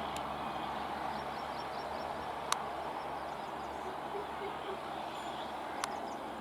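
A passing train running on, heard as a steady rushing rumble, with two sharp clicks about three and a half seconds apart.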